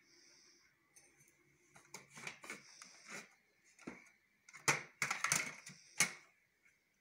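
Screwdriver and plastic parts clicking and scraping as the gear is pried off a disassembled Epson inkjet printer's mechanism: irregular sharp clicks, with the loudest cluster about five to six seconds in.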